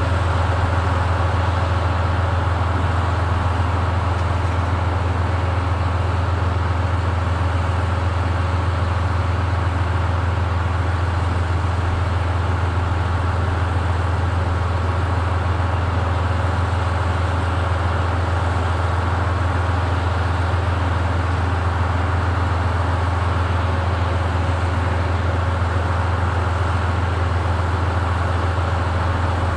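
Diesel train engine idling at a standstill: a loud, steady low hum with a faint steady whine above it, unchanging throughout.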